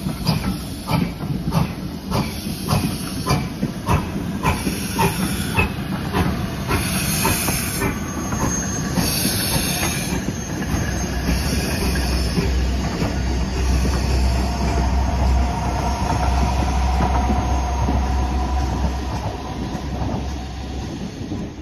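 A steam-hauled train passing close by. For the first half the carriage wheels click over the rail joints about twice a second. Then GWR Hall-class steam locomotive 4930 Hagley Hall goes past with a steady rumble and a hiss of steam, and the sound fades near the end.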